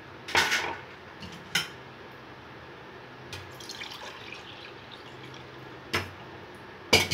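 Milk pouring and cup handling at a steel pot: a short splash of milk about half a second in, then a few sharp clinks of a glass cup, the loudest two near the end.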